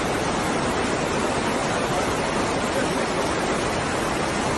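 Muddy floodwater rushing down a street as a fast torrent, a steady, even roar of moving water.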